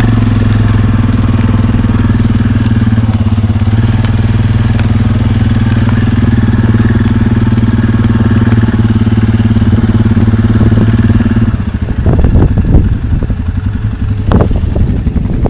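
ATV (four-wheeler) engine running steadily while riding on a rough trail. About three-quarters of the way through, the engine hum drops out and loud, irregular gusts of wind buffet the microphone.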